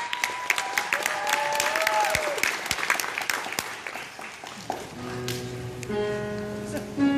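Audience applauding, with a rising, held whistle over the claps, dying away about four and a half seconds in. Then a steady held chord of several pitches sounds.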